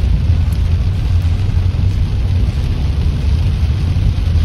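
Steady low rumble of a car being driven on a waterlogged road, heard from inside the cabin, with an even hiss of heavy rain on the windscreen.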